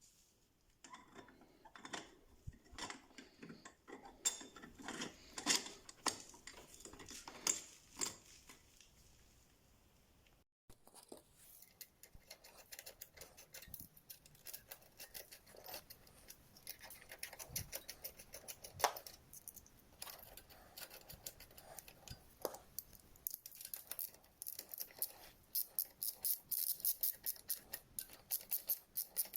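Metal hand tools and engine parts clinking, tapping and rattling during reassembly of a scooter engine's cylinder and head. Rapid, dense clicking builds toward the end.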